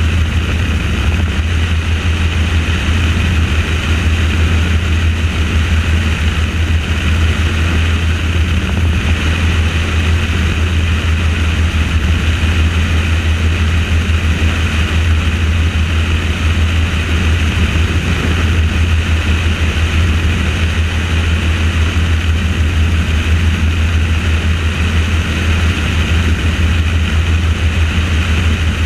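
Helicopter in flight, heard from on board: a steady, loud low hum of rotor and engine with a hiss above it.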